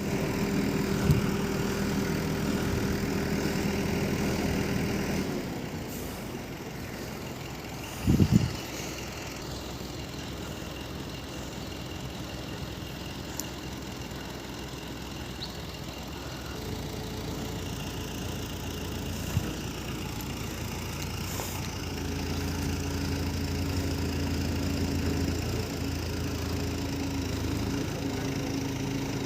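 Heavy machine engine idling steadily. It is louder for the first five seconds and again from about 22 seconds, with a single loud knock about 8 seconds in.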